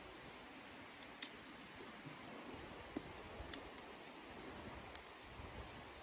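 Four or so sharp clicks of camping gear being handled and fitted together, the loudest near the end, over a steady rushing background.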